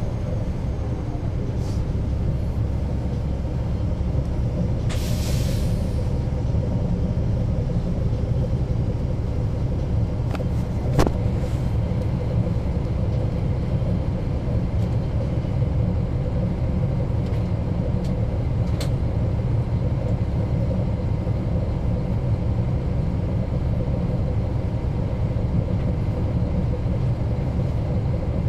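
Caterpillar C13 ACERT inline-six diesel of a NABI 40-SFW transit bus running steadily, a low rumble heard from inside the bus. A brief hiss comes about five seconds in and a sharp click about eleven seconds in.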